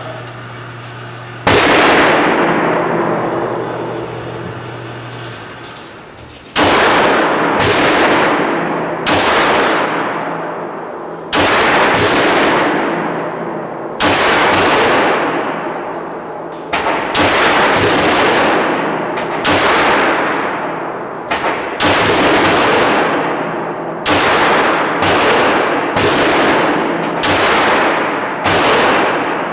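9mm semi-automatic pistol fired shot by shot in an indoor range, each report followed by a long echo. A single shot comes about a second and a half in, then after a pause a steady string of about twenty more, spaced half a second to two seconds apart.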